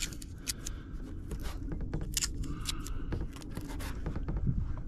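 Footsteps on dirt and gravel: irregular short scuffs and clicks over a steady low rumble on the microphone.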